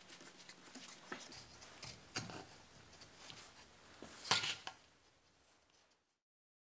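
Steel chisel blade scraping over a wooden inlay set flush in a stone millstone top, paring off the hardened residue around it. Faint scratchy strokes with three sharper scrapes, the last and loudest about four seconds in.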